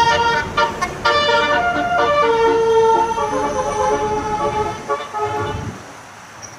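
Bus telolet horn playing a tune of several stepped notes over the rumble of the bus. The horn stops about a second before the end, leaving quieter road noise.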